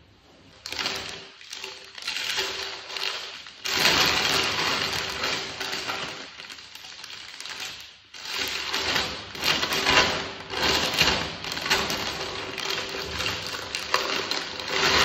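Clear plastic bag crinkling and rustling as gloved hands turn a sneaker around inside it, a dense run of small crackles that swells and eases.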